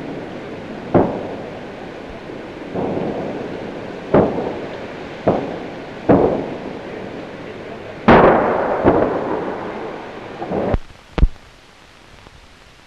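A string of heavy explosions, each a sudden boom dying away in a rumble, about nine in all, with the loudest and longest about eight seconds in. They stop about eleven seconds in, leaving only faint hiss.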